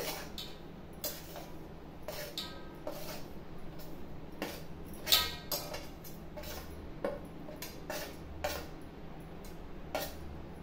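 A small steel spoon scraping and tapping on a stainless steel plate as chili powder is pushed off it into a steel mixing bowl: irregular metal clinks and scrapes, with one louder ringing clink about halfway through.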